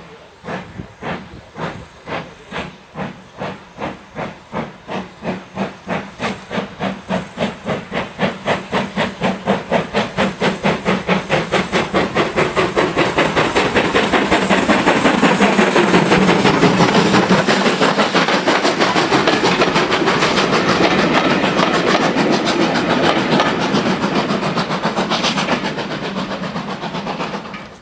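BR Standard Class 2MT 2-6-0 steam locomotive 78018 pulling away with a train of coaches: its exhaust chuffs start slow, about one and a half a second, and quicken to a rapid rhythm, louder with steam hiss as it passes close, then easing as it draws away.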